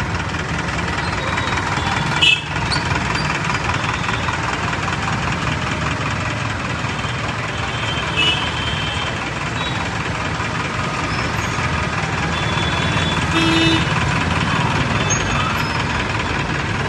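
Busy town street traffic: a steady din of vehicle engines with short horn toots about two seconds in, about eight seconds in, and again about thirteen seconds in.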